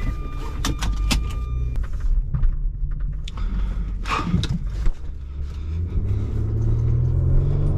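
Nissan SUV's engine running, heard from inside the cabin, with a steady electronic warning tone for the first couple of seconds and scattered clicks and knocks from the controls. About six seconds in the engine note rises and gets louder as the car pulls away.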